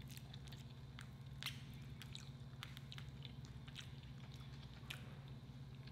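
Quiet eating sounds: faint scattered clicks of a plastic fork working in a paper side cup, with soft chewing, over a steady low hum.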